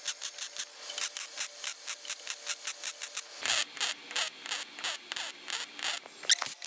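MIG welder tack welding thin 18-gauge sheet metal, the gun triggered in short pulses so the arc crackles in quick separate bursts, several a second. The bursts grow louder about halfway through.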